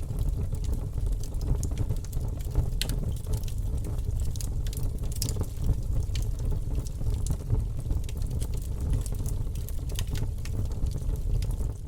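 Wood campfire burning: a steady low rumble with frequent irregular crackles and pops from the burning wood.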